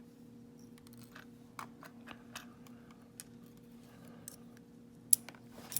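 Small, light metal clicks and ticks of lock pins and springs being handled as a pin-tumbler lock is taken apart, irregularly spaced, with one sharper click about five seconds in, over a faint steady hum.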